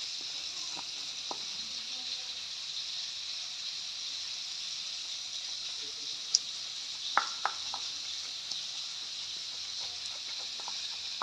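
Food frying in hot oil, a steady sizzle, with a few sharp clicks a little past halfway.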